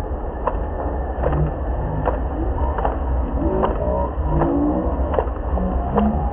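Spoon clinking against a steel bowl as eggs are beaten, a sharp click a little more than once a second, over a steady low rumble.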